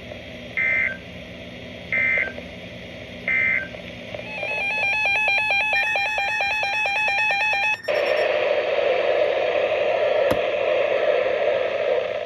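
Weather radio emergency alert data tones: three short, identical digital bursts about a second and a half apart, typical of the end-of-message signal after a warning. These are followed by about four seconds of rapid warbling data tones that cut off suddenly, then a steady static hiss on the radio channel.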